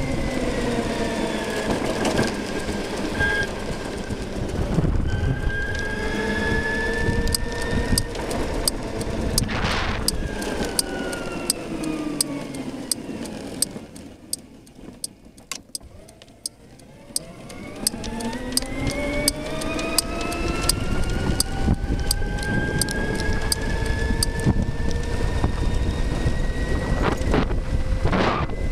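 Electric scooter motor whine from an e-moving fitted with a V200 drive system, over wind and road noise. It falls in pitch as the scooter slows and dies away almost to nothing for a couple of seconds in the middle. Then it climbs steadily in pitch as the scooter accelerates again. A regular ticking, about two a second, runs through the middle stretch.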